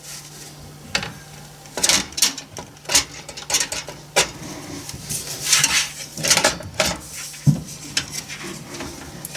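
Irregular metal clicks, clinks and short scrapes of a screwdriver and a small screw being worked against a computer case's metal frame, over a faint steady low hum.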